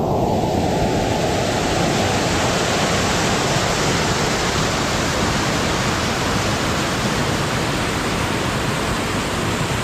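Floodwater rushing in a loud, steady roar with no break.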